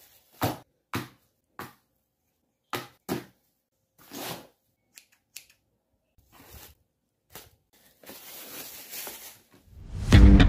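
Scissors and paper being handled: a string of about ten short, sharp snips and clicks, then a longer soft rustle of paper. Near the end, upbeat funk background music comes in and is the loudest thing.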